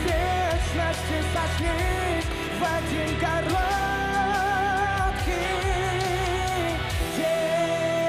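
Male vocalist singing long, wavering held notes of a Russian-language pop ballad over live-show backing music. About seven seconds in the low backing drops out, leaving one steady sustained note.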